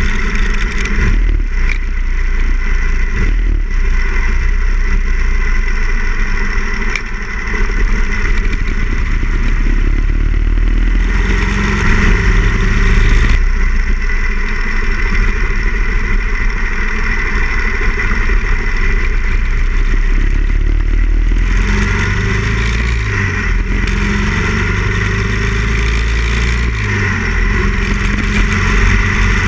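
Harley-Davidson Ironhead Sportster XL1000's air-cooled V-twin running under way, heard from a tank-mounted camera over steady wind and road rush. The engine note drops and rises several times as the rider eases off and accelerates.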